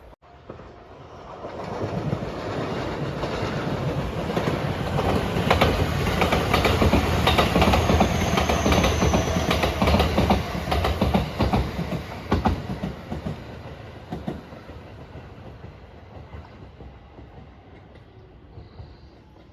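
Electric express train passing by. The noise builds over the first couple of seconds and is loudest in the middle, with the wheels clacking over the rail joints, then fades away over the last several seconds.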